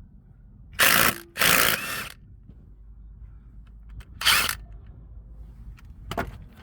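Three short, loud bursts from a power tool working on a car engine's crankshaft pulley during front oil seal replacement, with a smaller sharp sound near the end.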